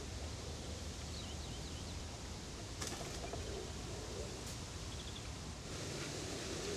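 Outdoor ambience: a steady background hiss with a few faint, brief bird chirps and two light clicks a couple of seconds apart.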